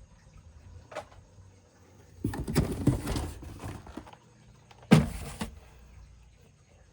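Plastic toy vehicles being handled: a noisy scrape lasting nearly two seconds, then a single sharp knock about a second later.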